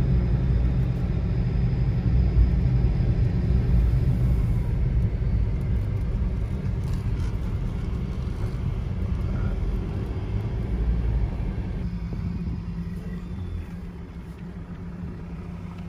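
Car engine and road rumble heard from inside the cabin while driving slowly; the rumble quietens near the end.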